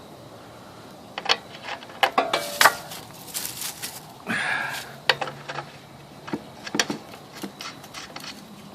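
Irregular metallic clinks and clicks of small radiator fittings and hand tools being handled, some with a short ring.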